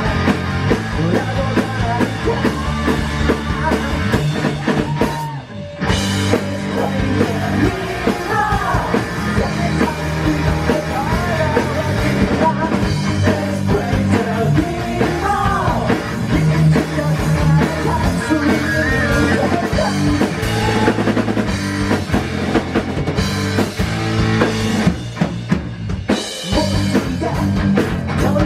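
Rock band playing live: drum kit, electric guitar and a sung vocal line. The band drops out briefly about five and a half seconds in, then comes back in full.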